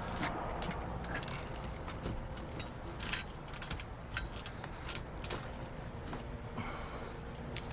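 Irregular clinks, knocks and rustles of bottles and trash being rummaged through in a dumpster.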